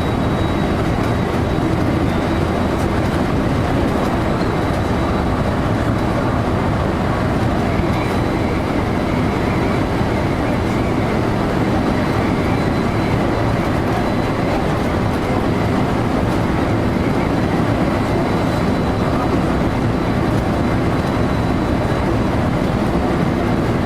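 JR local train running along the line, a steady rumble of wheels on rails heard from inside the train, with a faint steady high whine above it.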